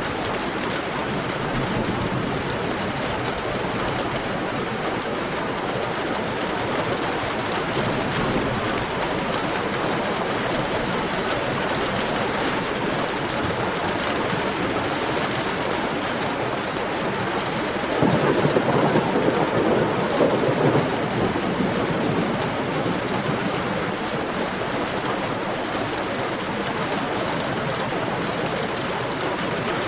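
Heavy rain falling steadily in an even hiss. About two-thirds of the way through, a roll of thunder swells up suddenly and fades over a few seconds.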